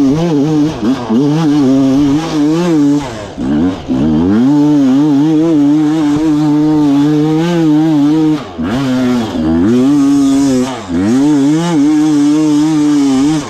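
Dirt bike engine running hard at high revs, its pitch wavering, with the revs dropping off sharply and picking up again four or five times as the throttle is chopped and reopened.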